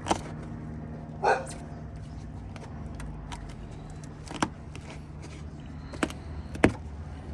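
A few sharp clicks and knocks and a brief squeak over a steady low hum, as a blade cuts through the adhesive bead holding a car's rear quarter glass.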